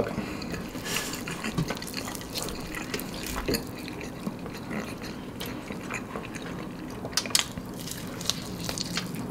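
Close-miked eating sounds: wet chewing and soft lip-smacking clicks as a piece of fried chicken is bitten and chewed, with scattered short clicks over a low background.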